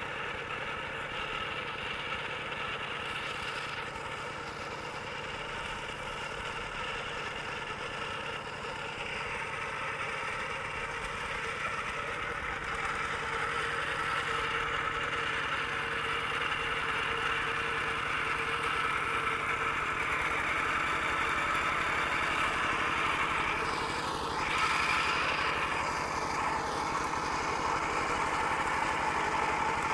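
Single-cylinder diesel of a Kubota RT120 walking tractor running steadily as it pulls through a muddy paddy, growing louder through the middle.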